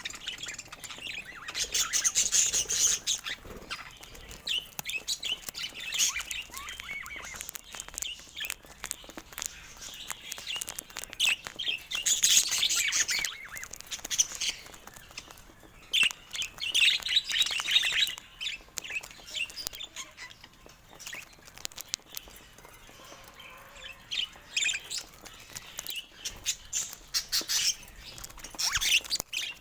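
Budgerigars chirping and chattering in bursts of a second or two, with quieter stretches between.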